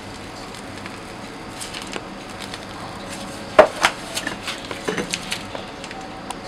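A few sharp clinks and knocks of kitchen utensils and containers being handled, the loudest two about three and a half seconds in, followed by several lighter ones, over steady background noise.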